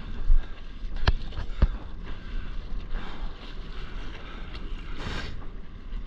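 Wind buffeting an action camera's microphone over water splashing around a stand-up paddleboard as it is paddled. Two sharp knocks about a second in, and a brief louder splash near the end.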